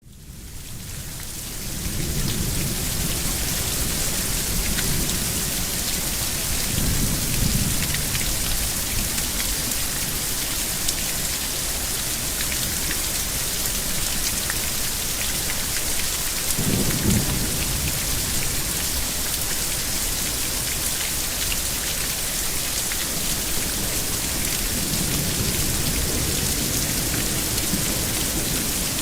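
Thunderstorm: steady heavy rain hissing, with thunder rumbling low several times, the sharpest clap about seventeen seconds in. The sound fades up over the first couple of seconds.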